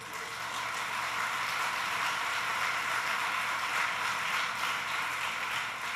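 Audience applauding: a steady clapping that builds during the first second, holds, and dies away near the end.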